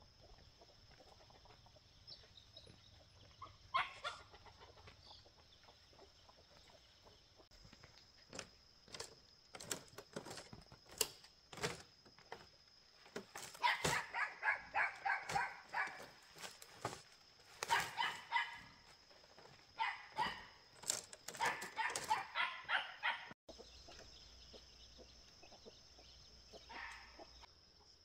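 A small puppy yapping in quick runs of high yips, about four a second, in several bouts in the second half. Sharp knocks come a few seconds before it, and a steady high insect drone sits underneath throughout.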